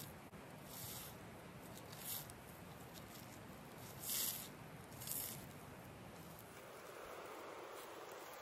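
Knife cutting the backstrap from a feral hog's carcass: faint wet slicing, with four short swishes of the blade through flesh and hide.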